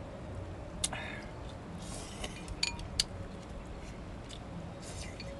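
Tableware clinking at a meal: a few sharp clinks, about a second in and twice near the three-second mark, two of them ringing briefly like glass or china.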